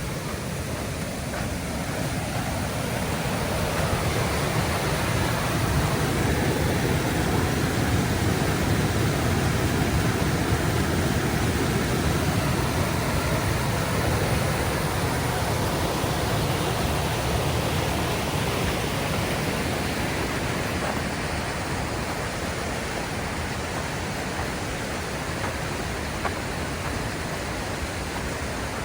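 Steady rushing of water falling over Hoggs Falls, swelling over the first few seconds and easing back slightly later on.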